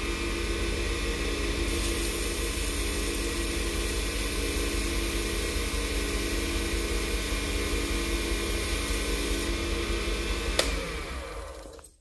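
Small lathe motor running steadily, spinning a Padauk pen blank while a foam-backed sanding pad is worked across the wood. Near the end it is switched off with a click, and the motor winds down to a stop.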